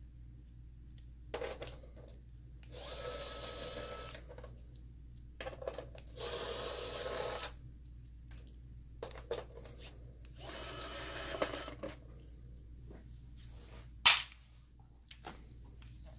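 Pen-style electric screwdriver whirring in three short runs of a second or two each while removing screws, with light clicks between runs and one sharp click near the end.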